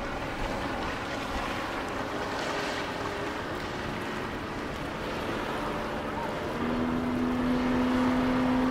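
Preserved bus's diesel engine running under a steady rumble. About six and a half seconds in, a strong, steady-pitched engine note comes up and holds.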